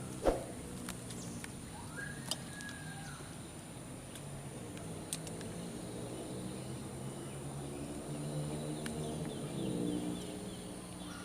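Rural outdoor ambience: birds and fowl calling over a steady low hum, with a sharp click about a quarter second in.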